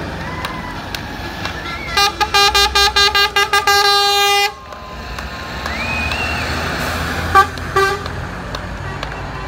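Fire truck horns honking in a rapid series of short blasts for about two and a half seconds, over the steady rumble of passing heavy vehicles. A short rising and falling whoop follows a little later, then a couple of brief toots.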